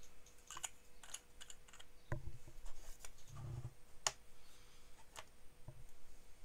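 Light clicks and knocks of handling: a fountain pen being put down and a pocket digital scale in its hinged case being set on the desk and opened, with dull thumps about two seconds and three and a half seconds in.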